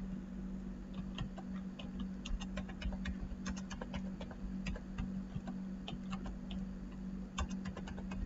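Computer keyboard being typed on: irregular runs of quick key clicks, over a steady low hum.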